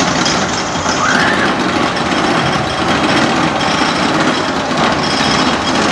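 Ninja roller coaster train climbing its chain lift hill: a steady mechanical rattle from the lift chain and train.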